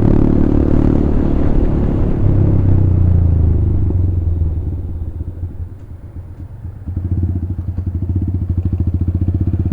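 Motorcycle engine and exhaust running on the move. About halfway through, the throttle is eased off and the note dies down. About seven seconds in it picks up again with an even, pulsing beat.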